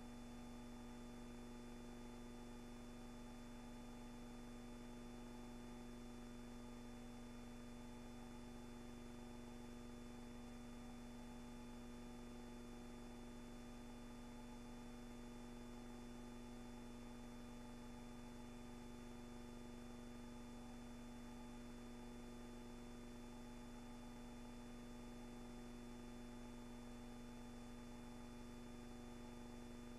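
Steady electrical hum with a faint hiss, unchanging throughout, with no sound from the scene itself.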